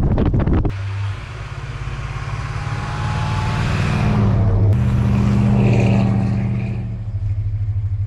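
Wind on the microphone of a moving vehicle. Then, after a cut, a Chevrolet Suburban's engine pulls through snow, rising in pitch as it accelerates. After a second cut about halfway through, the engine runs steadily.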